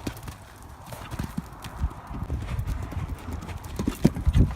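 Horse's hooves clip-clopping, a run of uneven low thuds with small clicks.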